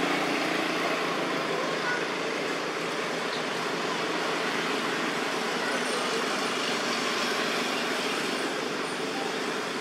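Steady road traffic noise, an even hiss of passing vehicles with no single event standing out.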